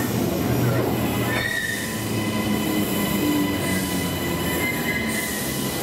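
Queensland Rail New Generation Rollingstock electric train moving along a station platform: a rolling rumble under steady high-pitched whines from the train, with a squealing tone starting about a second and a half in.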